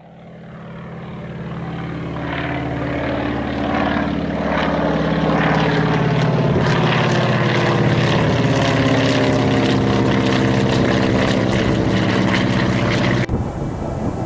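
Piston-engined propeller warbird flying past, growing steadily louder over the first few seconds and dipping slightly in pitch as it passes. The sound cuts off abruptly about a second before the end.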